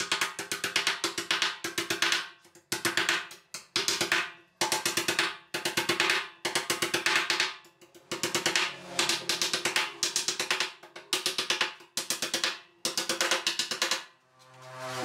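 Background music with fast, rolling drumming in bursts over held notes.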